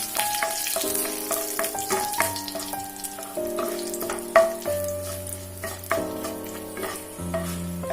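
Dried red chillies and curry leaves sizzling in hot ghee in a kadai, with the spatula clicking and scraping against the pan as they are stirred, including one sharper knock about halfway through. Soft background music with slow, sustained notes plays along.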